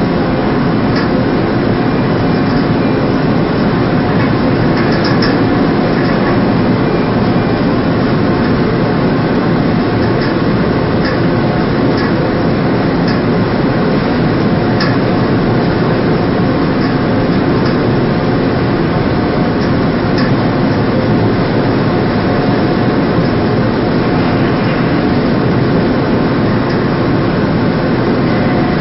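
Steady, loud drone of a ship's machinery, unchanging throughout, with a few faint ticks on top.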